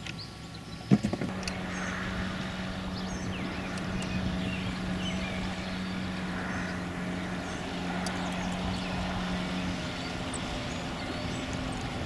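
A sharp knock, then a boat motor humming at a steady pitch that steps up to a higher pitch near the end.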